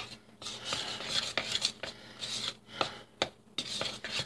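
A metal spoon stirring and scraping flour and sourdough starter together in a mixing bowl, a gritty scraping in repeated strokes broken by sharp clicks of the spoon knocking the bowl.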